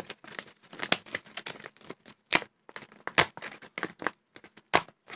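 Kraft-paper mailer envelope being torn open by hand: a string of short, irregular ripping and crinkling sounds, the loudest rips about two and a half and three seconds in.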